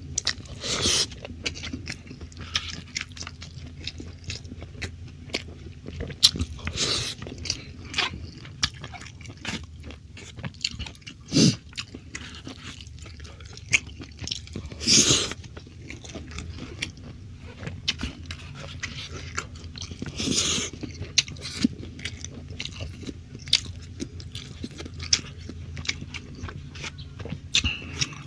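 Close-miked eating: chewing and biting of rice and stir-fried beef in soy sauce, with wet mouth clicks and a few louder bursts of noise scattered through.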